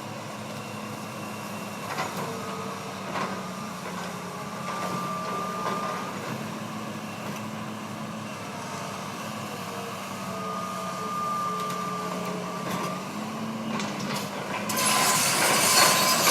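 An engine running steadily at an even pitch with a few light knocks. About three-quarters of a second before the end, a louder rasping starts: a chainsaw biting into wood.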